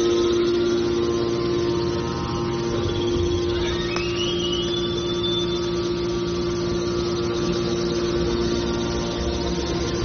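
Scrap metal baler's hydraulic power pack, its electric motors driving the hydraulic pumps, running with a steady hum. A thin whine rises in pitch about four seconds in.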